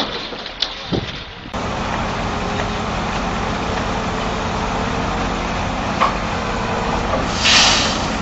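A few sharp knocks, then a heavy engine running steadily with dense mechanical noise. A short hiss comes near the end.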